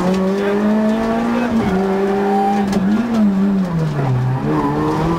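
Peugeot 106 rally car's engine heard from inside the cabin, pulling hard under load with a gear change about one and a half seconds in. The revs climb again, fall away around four seconds in and pick straight back up.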